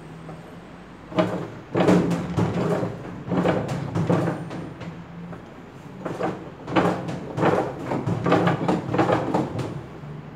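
Metal clanking and knocking as a long T-handle 10 mm socket wrench is worked down inside the tub of a Samsung WA85U3 top-loading washer, turning a nut counter-clockwise to loosen it. The knocks come in irregular clusters over a low steady hum.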